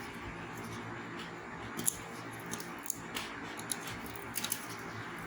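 Several light, sharp clicks and taps of hands working a TV's LVDS ribbon cable out of its connector on the circuit board, over a faint steady hiss.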